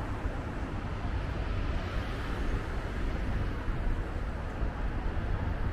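Steady outdoor city street ambience: a low traffic rumble with wind buffeting the microphone.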